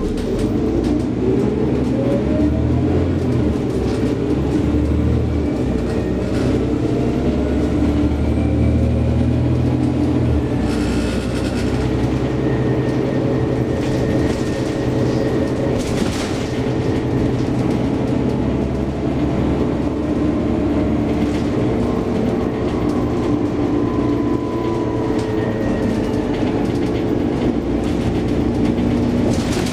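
Scania OmniCity city bus heard from inside the cabin while under way: a steady engine and drivetrain drone with a whine that rises in pitch as the bus picks up speed. There are a couple of short knocks from the body and fittings, one about a third of the way in and another about halfway.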